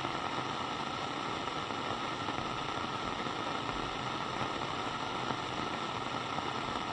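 Steady static-like hiss with a faint high tone running through it, starting abruptly after the music stops.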